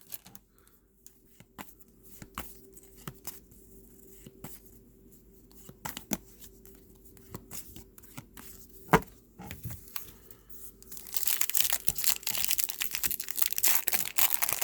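Trading cards being handled with light taps and clicks, one sharp click about nine seconds in; then, from about eleven seconds in, a foil trading-card pack wrapper being torn open and crinkled.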